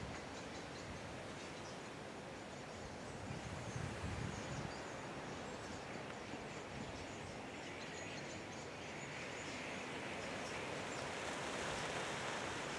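Starling murmuration: many faint high chirps over a steady outdoor hiss, with a soft rushing noise that grows louder over the last few seconds.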